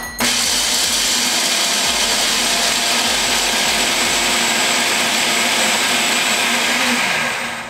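Food processor running, grinding pine nuts into a flour. The motor comes on just after the start, runs steadily, and is switched off near the end, winding down.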